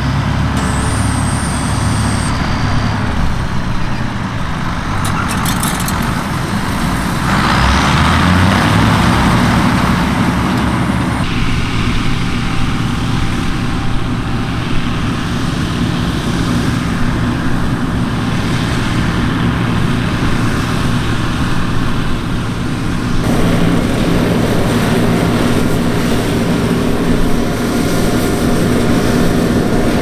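Massey Ferguson 760 combine's six-cylinder Perkins diesel and threshing machinery running steadily while harvesting wheat. The sound changes abruptly several times, about 2, 7, 11 and 23 seconds in.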